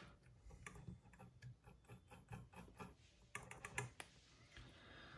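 Faint, irregular small clicks and taps of hands working small parts and tools at a repair bench, thinning out after about four seconds.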